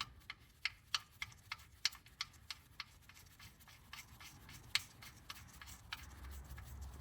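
Small sharp clicks and taps, about three a second at first and then sparser, from the oil drain plug being handled and threaded back in by hand.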